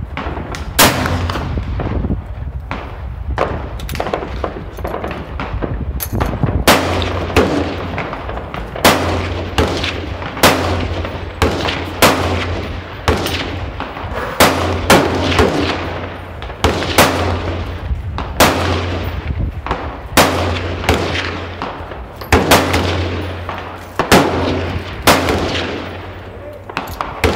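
Gunfire on an outdoor shooting range: a steady run of single shots of differing loudness from several guns, roughly one every second or two, each followed by a short echo.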